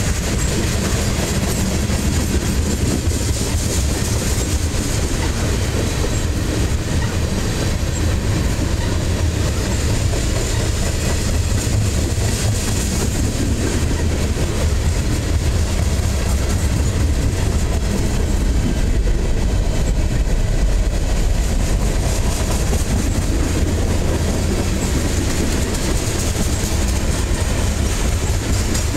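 Freight train's tank cars and covered hoppers rolling past close by: a steady, loud rumble and clatter of steel wheels on the rails.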